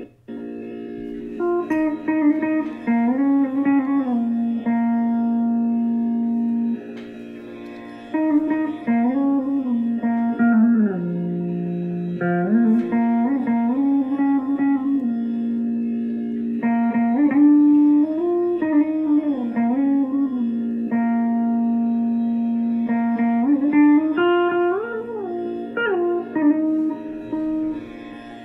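Plucked string instrument playing a slow Carnatic melody, its notes bent and slid between, over a steady low drone.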